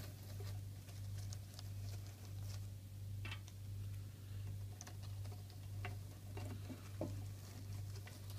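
Small scattered clicks, taps and rustles of artificial plastic plants being handled and pushed into dry coco-fibre substrate in an acrylic enclosure, with a sharper tap about seven seconds in. A steady low hum runs underneath.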